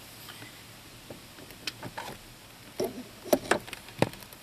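Scattered short clicks and knocks, louder and more frequent in the second half, from parts being handled as the electric power steering motor is worked off the steering column.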